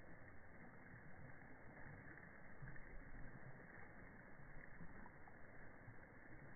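Faint, steady rush of shallow water running along a concrete channel.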